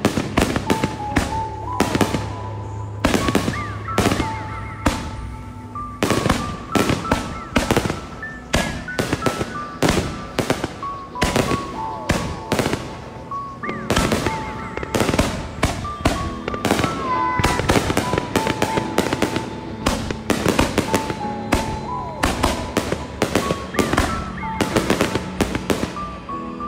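Aerial fireworks launching and bursting close by: a dense, irregular series of sharp bangs, over background music with a stepping melody.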